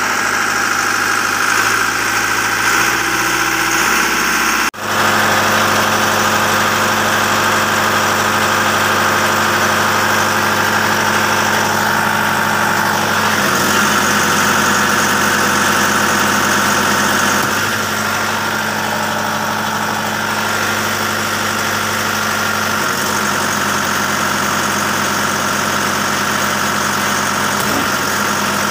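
Schwing Stetter SP1200 trailer concrete pump's diesel engine running steadily. It breaks off for an instant about five seconds in, and its note shifts slightly a few times later on.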